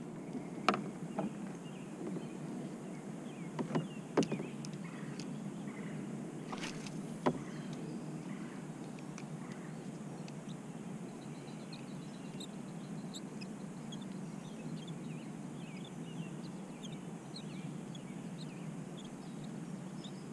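Quiet lake ambience from a fishing kayak: a low steady rush, a handful of sharp clicks and knocks in the first eight seconds as rod and boat are handled, and faint high bird chirps in the middle stretch.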